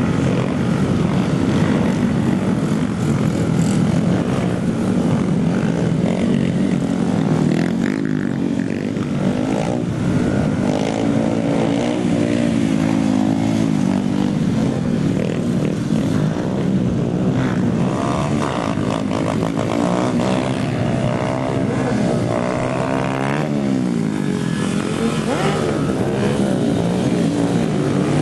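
Small single-cylinder pit bike engines revving hard and falling back as riders hold wheelies, the pitch rising and dropping with the throttle over and over. At times two bikes are heard at once.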